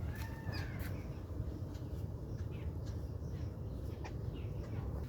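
Wild birds calling with short chirps and one arched call about a second long near the start, over a steady low rumble.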